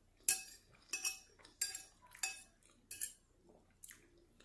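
Metal fork clinking and scraping against a plate of pasta, eight or so sharp clinks, each with a short ring, in an uneven rhythm over about four seconds.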